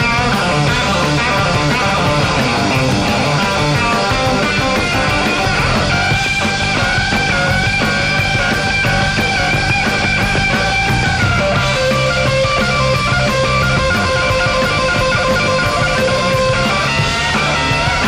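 Live rock band playing an instrumental passage with no singing, electric guitar to the fore, with long held notes from about six seconds in and again from about twelve seconds in.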